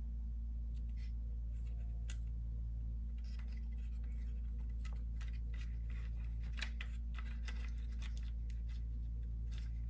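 Light clicks and scratches of small parts being handled: wires and tape worked into an HO-scale model locomotive, busiest from about the middle to near the end, over a steady low hum.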